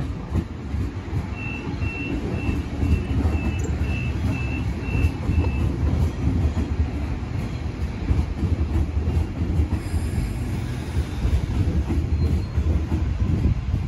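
A Sydney Trains Waratah A set double-deck electric train running past close by, with a loud, steady rumble of wheels on rail. In the first few seconds comes a run of about ten short, high-pitched beeps.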